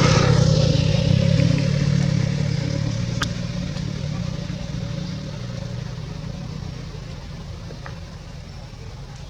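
A motor vehicle's engine running, loudest at the start and fading steadily as it moves away, with a single sharp click about three seconds in.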